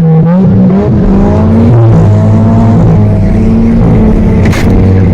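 Ford Focus engine running hard on a dirt track, its pitch rising and falling as the throttle changes. There is a short sharp clatter near the end.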